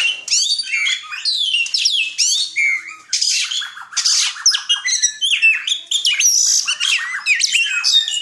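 Caged pet songbird singing a fast, varied song of chirps, sweeping whistles and quick trills, phrase after phrase with hardly a break.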